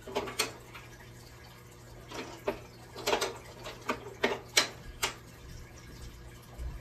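Light clicks and knocks of a candle being set down inside a glass-paned lantern and the lantern being handled: short taps in small clusters, the sharpest about four and a half seconds in.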